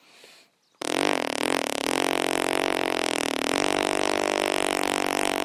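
A person imitating a KTM Duke motorcycle engine with his mouth: a continuous buzzing drone through pursed lips that starts about a second in and holds a fairly steady pitch with slight wobbles, like an engine running.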